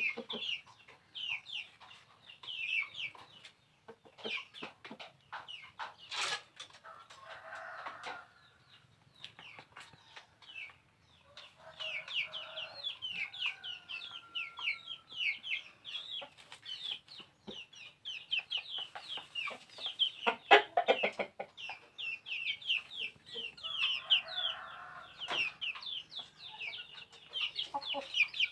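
A flock of chickens: chicks peep almost non-stop in quick, short, high cheeps. Lower clucking calls from the grown birds break in now and then, and there are a couple of sharp knocks.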